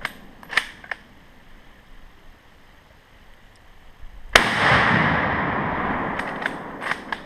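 A Yugoslavian M48 Mauser rifle in 8mm Mauser fires a single shot about four seconds in, followed by a long rolling echo. The shot comes a few seconds after faint clicks in the first second, and the shooters call it a hang-fire: the surplus cartridge went off late after the trigger pull. A few light clicks sound near the end.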